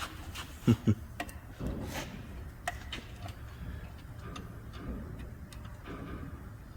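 Light metallic clicks and taps of hand tools against a car door hinge as its spring is being refitted, with two sharp knocks in quick succession about a second in.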